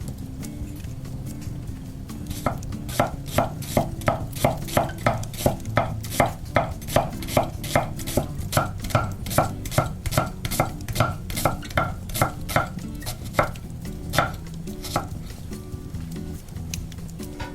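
Rapid, evenly paced strokes of a kitchen utensil, about three a second, that start a couple of seconds in and stop near the end, over soft background music.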